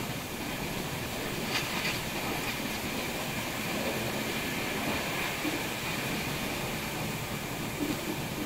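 Moving express passenger train heard from an open coach door: the steady rumble and rush of wheels on rail and passing air. A few sharp clicks come about one and a half seconds in and a few smaller knocks near the end.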